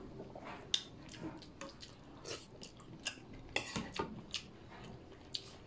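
Faint eating sounds: a spoon clinking and scraping in a bowl of stew and on a plate, heard as scattered irregular clicks, with quiet chewing between them.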